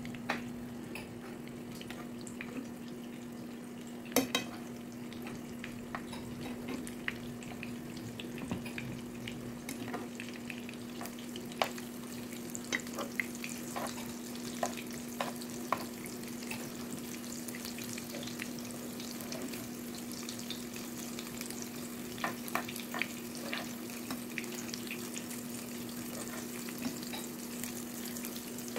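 Oil sizzling in a frying pan around egg-filled green bell pepper rings, with scattered crackles and pops, a louder cluster of pops about four seconds in. A steady low hum runs underneath.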